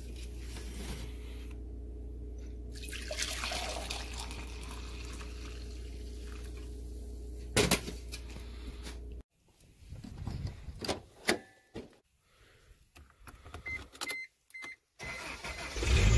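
Coffee poured from a coffee-maker carafe into a mug over a steady low hum, with a sharp clink near the middle. After a break come key clicks and a short repeating electronic chime, then the car's engine cranks and starts about a second before the end, running loud and low.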